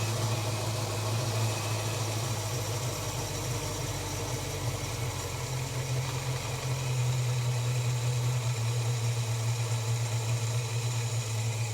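Holden HK car engine idling steadily with the idle backed down, without any lifter tick: the hydraulic lifters are quiet even at low idle.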